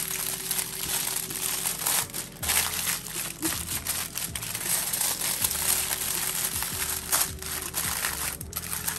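Aluminium foil crinkling and crackling as hands fold its edges and press it tight into a sealed parcel around a whole fish, with many short sharp crackles. Background music plays underneath.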